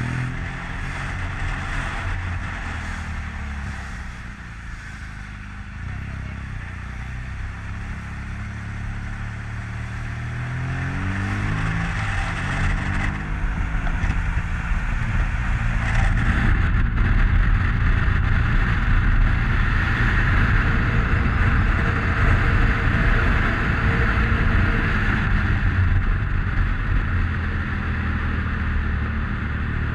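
Motorcycle engine heard through a GoPro Hero 7 Black's microphone while riding. Its pitch rises and falls as it pulls away and changes gear in the first half. From about fifteen seconds in, engine and wind noise run steady and louder at road speed.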